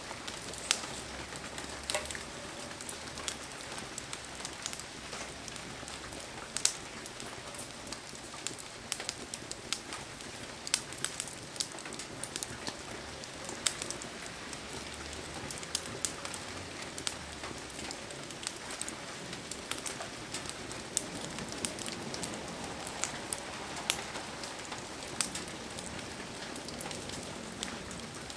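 Steady hiss of heavy rain, with scattered sharp pops and taps throughout.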